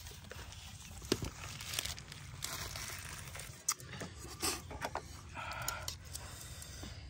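Plastic wrappers crinkling in the hands that grip a metal pot's handles, with scattered light clicks and knocks of chopsticks against the aluminium pot and bowls as noodles are lifted out.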